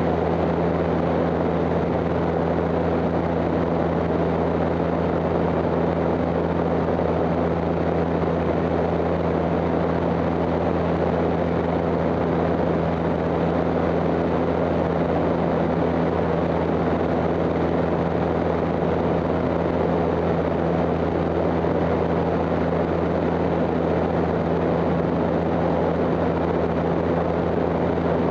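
Seaplane in flight: the steady drone of its propellers and engines, a few constant low tones under a broad rush of airflow, unchanging.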